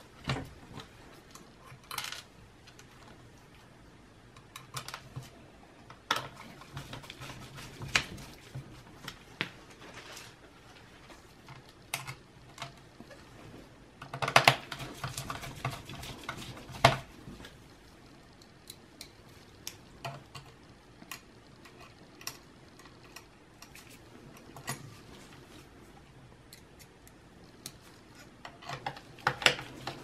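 Scattered small clicks, taps and light rattles of plastic and metal parts being handled inside an opened laptop, louder around the middle and near the end, over a faint low hum.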